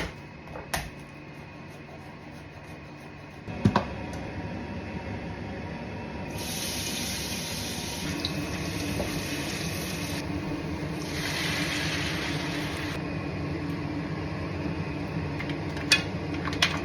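Cooking in a hot pan: a knock, then a steady sizzle, with two stretches of rushing, hissing liquid noise about six and eleven seconds in.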